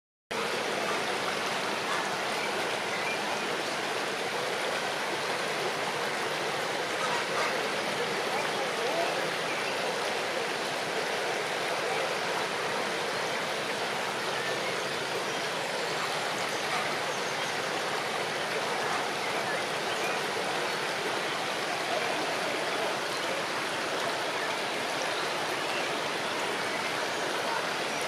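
Shallow river rushing steadily over rocks: a constant, even roar of flowing water over a riffle.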